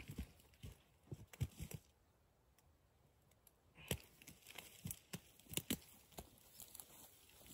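Faint, scattered crackling and rustling of dry brush being trodden through, irregular footsteps with a quieter stretch around the middle.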